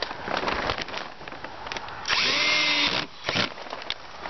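Handheld power drill running a screw in the timber rail for about a second, its motor pitch rising as it spins up, with clicks and handling noise around it.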